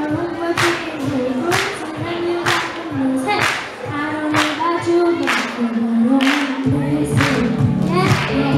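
A girl singing into a microphone over a backing track with a steady beat, about one sharp stroke a second. A deep bass line comes in about two-thirds of the way through.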